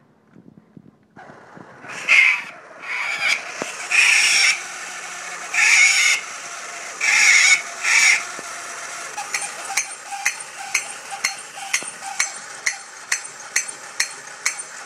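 Jolly Chimp toy monkey: its motor starts up, the chimp gives a run of loud, shrill squeaker screeches, each about half a second long, then settles into clashing its small cymbals at about two clashes a second.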